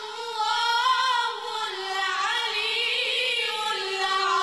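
Young boys' voices chanting a melodic religious recitation in unison. The line winds up and down in ornamented turns and settles into a long held note near the end.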